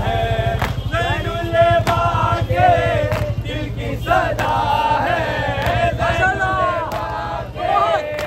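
Men chanting a Muharram nauha (lament) in unison, one voice leading with long, gliding phrases, with sharp slaps of chest-beating about once a second and a steady low hum underneath.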